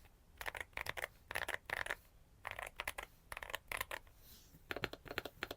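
Mechanical keyboard with Aflion Ink tactile switches being typed on: quick runs of keystrokes in short bursts with brief pauses between them, and a longer pause shortly before a last burst near the end.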